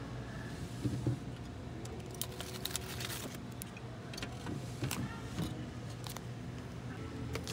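Supermarket freezer case's sliding lid pulled open by its handle, then frosted plastic-wrapped hotdog packets lifted from the wire rack with crinkles and sharp clicks, thickest about two to three seconds in, over a steady low hum.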